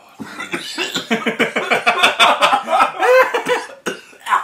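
A man coughing and laughing in rapid fits, set off by the strong smell of Limburger cheese.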